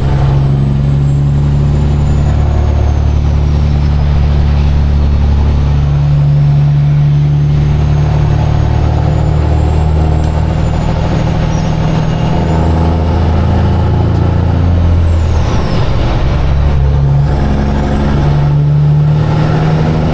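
Peterbilt semi truck's diesel engine running loud under load, its note shifting up and down as it pulls through traffic, with a brief dip about fifteen seconds in before it picks up again. A faint high whistle rises and falls over it.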